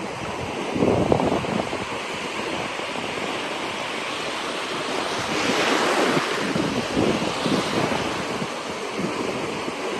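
Ocean surf breaking and washing up a beach, with wind buffeting the microphone. The hiss of the surf swells loudest about halfway through.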